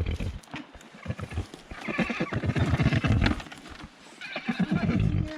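Horse nickering and whinnying in three bursts of low, rapid fluttering: at the start, about two to three seconds in, and near the end.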